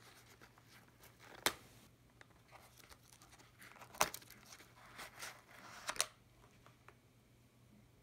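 A Bianchi M12 nylon military holster being handled: three sharp clicks spread through the middle, with rustling of the nylon fabric between the second and third.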